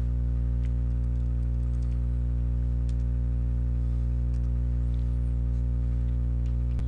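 Steady electrical hum with a buzz of many even overtones, constant throughout, with a few faint scattered clicks.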